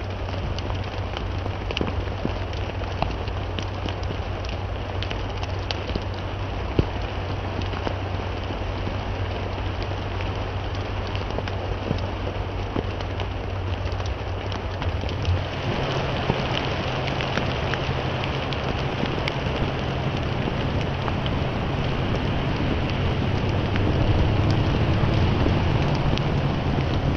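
Steady rain falling, with many small drop ticks through it; it grows a little heavier about halfway through.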